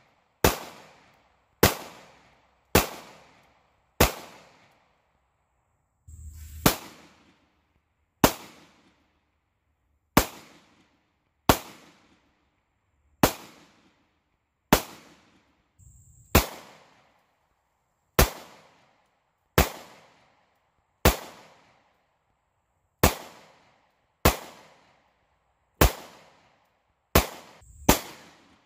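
Single 9mm pistol shots firing brass-cased ammunition, about twenty in all, spaced roughly one to two seconds apart, each with a short echo ringing after it.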